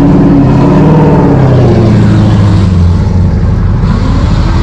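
Car engine running loud under throttle, its note sliding down in pitch over the first three seconds before settling into a rougher, steadier sound.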